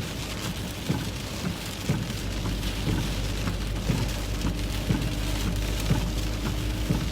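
Heavy rain on a moving truck, scattered sharp drop ticks over a steady hiss, with the low hum of the tires and road noise beneath.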